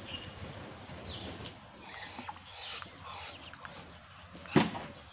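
Muscovy ducklings peeping: many short, high, falling chirps overlapping while they peck at feed in a trough, over a soft rustling. A single sharp knock comes about four and a half seconds in.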